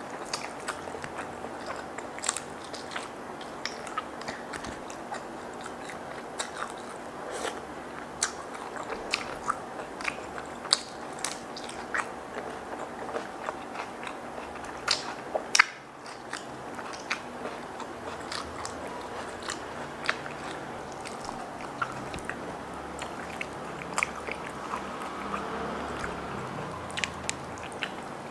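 Close-miked eating: a person chewing and biting into fried chicken covered in chili sambal, with many sharp little crunches and wet clicks scattered throughout. A faint steady hum sits underneath.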